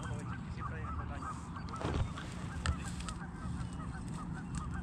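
A flock of geese honking over and over, several calls a second, over a low wind rumble on the microphone, with a couple of sharp clicks about two seconds in.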